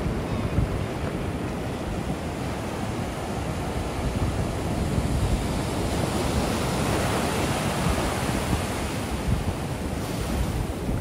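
Ocean surf: waves breaking and washing up the beach, with wind buffeting the microphone. The wash swells up about six seconds in and fades a few seconds later.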